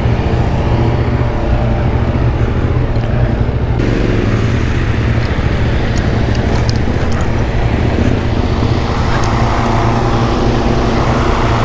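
Suzuki V-Strom 1050's V-twin engine running steadily under way, with wind and road noise over it.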